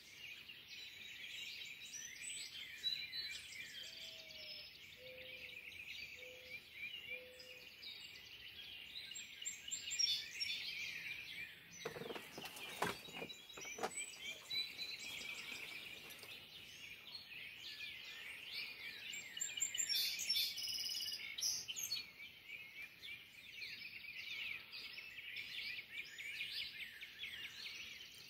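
Dawn chorus of many birds chirping and singing over one another in early morning mist, with a few low cooing notes about four seconds in and a short run of clicks about twelve seconds in.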